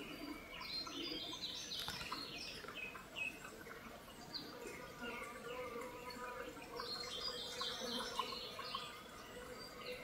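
Wild songbird singing: phrases of quick high chirping notes, one around two seconds in and another around seven to eight seconds, with scattered single chirps between.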